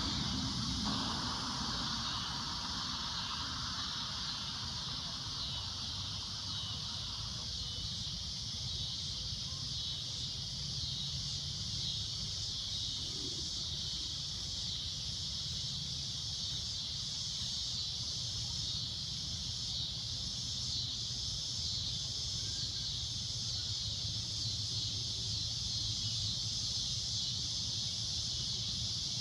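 Cicadas droning steadily: a continuous, shrill high-pitched buzz that holds level throughout, over a low background rumble. A fainter engine-like sound fades away over the first several seconds.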